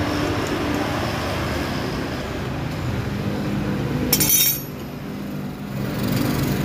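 Metal hand tools clinking together once, briefly, about four seconds in, over a steady background rumble.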